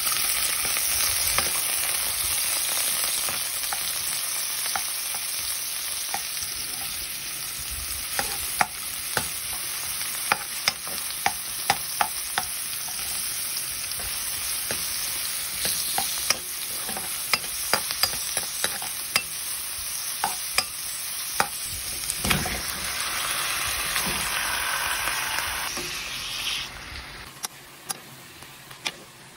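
Diced red onion and ginger sizzling in hot oil in a pan, with a spatula clicking and scraping against the pan as it is stirred. The sizzle dies down near the end.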